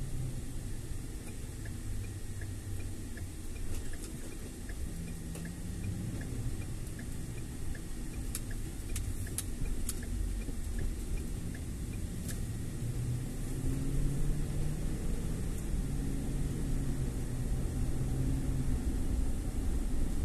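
Car driving on the road: a steady low engine and road rumble whose pitch shifts as it goes, growing a little louder in the second half. Faint regular ticking in the first half and a few sharp clicks near the middle.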